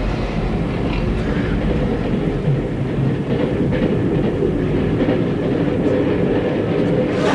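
A railway train running along the track, a steady rumble and rattle of the carriage.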